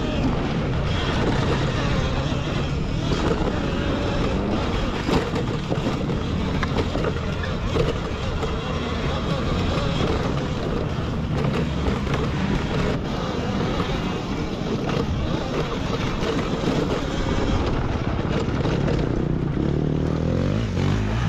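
Dirt bikes running through an off-road race: steady motor and riding noise, with an engine revving up near the end.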